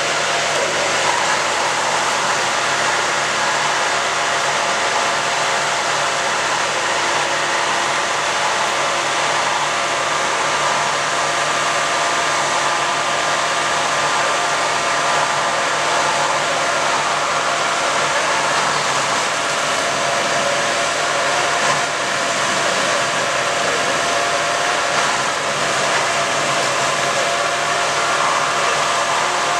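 A steady mechanical drone with a few faint steady tones in it, unchanging throughout.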